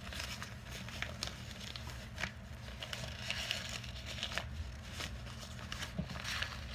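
Foldable fabric disc flyer being twisted and folded by hand: irregular rustling and crinkling with scattered light clicks.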